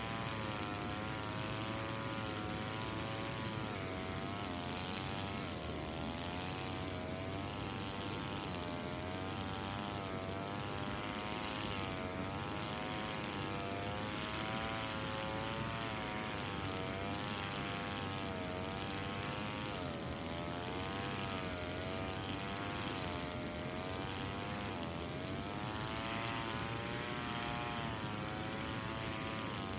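Brush cutter engine running at high revs while cutting grass, its pitch wavering up and down every second or two.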